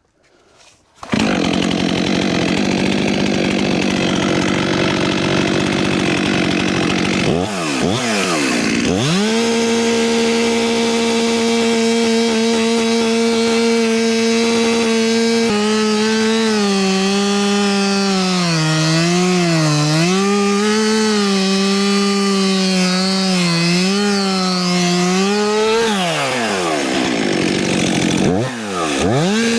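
Two-stroke chainsaw running at high revs and cutting into wood. Its engine note sags and wavers as the bar bogs in the cut, drops off about three seconds before the end, then revs up again.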